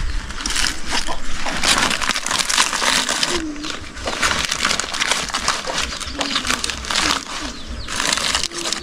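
Banana leaves crackling and rustling as they are handled, with many small crinkles and snaps.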